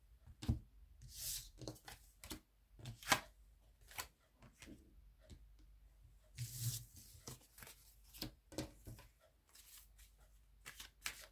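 A deck of tarot cards being shuffled and handled, in short irregular bursts of rustling and clicking with brief pauses between.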